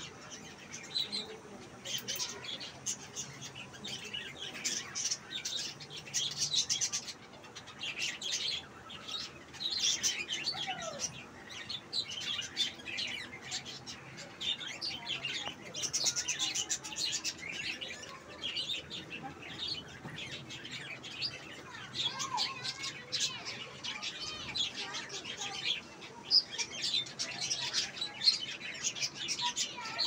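A flock of caged budgerigars chirping and chattering without pause, many short overlapping high calls.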